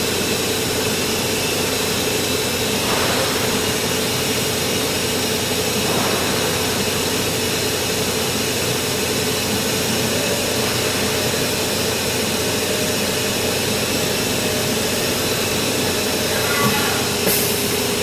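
Hurco VMX30U five-axis CNC machining centre running with its spindle milling a part held in a vise: a steady mechanical hum with a constant tone through it. Near the end come a few light clicks and a short hiss as the spindle pulls up from the part.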